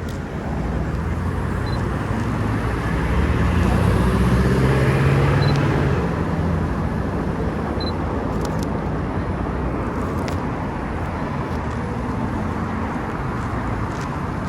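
City street traffic: a motor vehicle's engine and tyres pass close by, loudest about four to six seconds in, over steady road noise.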